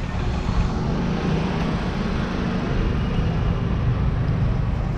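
City street traffic: cars passing, a steady unbroken wash of engine and tyre noise.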